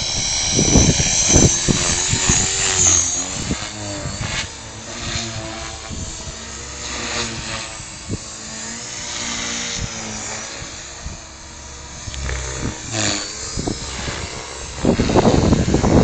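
Align T-Rex 450 electric RC helicopter flying: a high motor-and-gear whine at lift-off, then a rotor hum that rises and falls in pitch as it manoeuvres and grows fainter as it climbs away. Strong gusts of wind buffet the microphone near the end.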